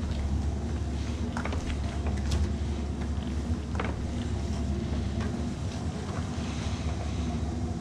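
Royal commercial upright vacuum cleaner running steadily on carpet, a constant motor hum with scattered short clicks, as it pre-vacuums dry soil out of the carpet before cleaning.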